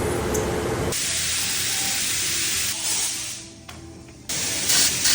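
Compressed-air spray hiss, likely a spray gun, in long bursts. It starts about a second in, breaks off for about a second in the middle, and resumes, over background music.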